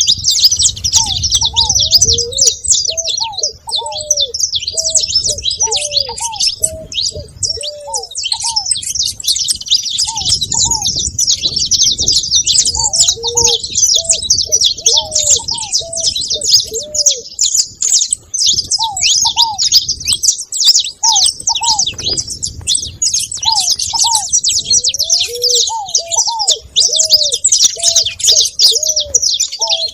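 A flock of saffron finches chirping continuously and densely, with ground doves cooing repeatedly in short series of lower, arching notes.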